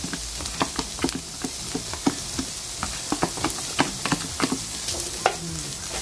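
Black spatula stirring and scraping sautéing garlic, onion, ginger, shrimp and flaked smoked fish in a nonstick frying pan: irregular clicks and taps over a steady sizzle of hot oil.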